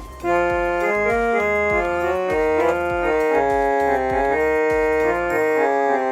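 Casio SA-47 mini keyboard playing a melody in its harmonium tone: held reedy notes stepping up and down over a steady low beat.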